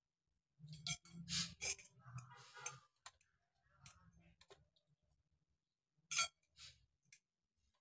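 Metal tubes and joints of a shoe rack clicking and clattering as it is handled and fitted together: a cluster of knocks in the first few seconds, then a sharp click about six seconds in.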